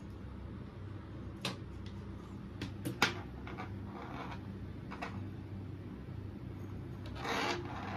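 Faint handling sounds: a few light clicks and knocks, the sharpest about three seconds in, over a low steady hum, with a short rustle near the end.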